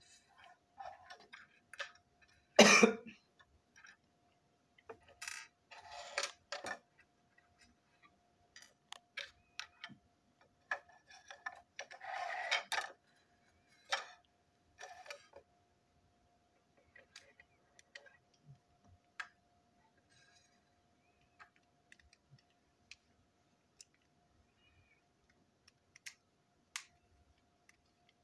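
Plastic parts of a toy locomotive handled and taken apart by hand: scattered clicks and knocks, a loud clatter about three seconds in, and short scraping rustles around six and twelve seconds in. A faint steady tone hums underneath.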